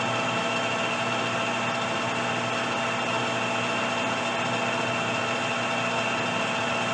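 Metal lathe running at steady speed with no cut being taken, its spindle and chuck giving an even hum with several steady tones.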